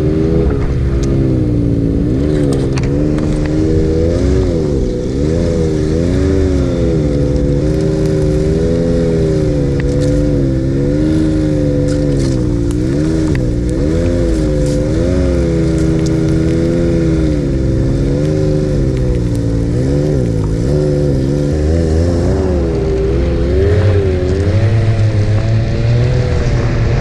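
Ski-Doo Expedition 900 ACE Turbo snowmobile's turbocharged three-cylinder four-stroke engine running under throttle while breaking trail in deep snow, its pitch rising and falling again and again as the rider works the throttle.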